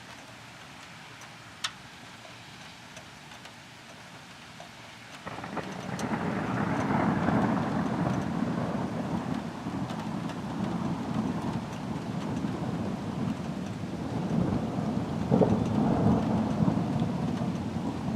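Steady rain hiss, then about five seconds in a long roll of thunder sets in suddenly and rumbles on, swelling again near the end, with the rain still falling.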